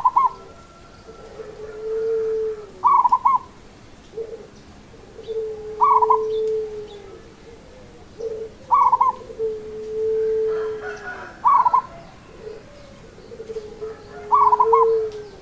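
Local zebra dove (perkutut) singing its cooing song, the phrase repeated about every three seconds: each opens with a short, loud, higher note, followed by a long low held coo that drops in pitch at its end.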